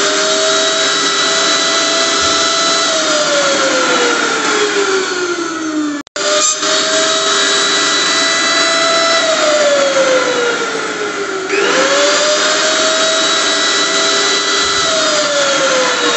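Electric kitchen blender motor running with a high whine that climbs quickly to speed, holds steady, then slides slowly down in pitch, in repeating cycles. The sound cuts out for an instant about six seconds in.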